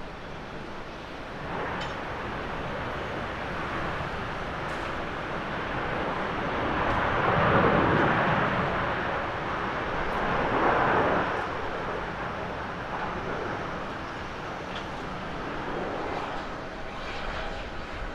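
Boeing 787-9 airliner's jet engines running as it rolls down the runway after landing: a rushing noise that swells to its loudest about eight seconds in, rises again near eleven seconds, then eases off.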